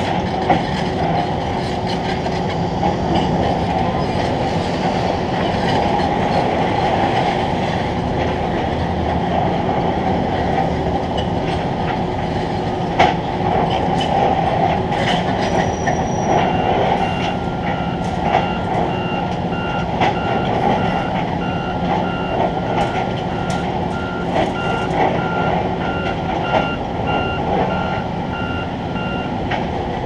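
Steady rumble of heavy construction machinery, with scattered metallic clanks and knocks. About halfway in, a backup alarm starts beeping at an even pace and keeps going until just before the end.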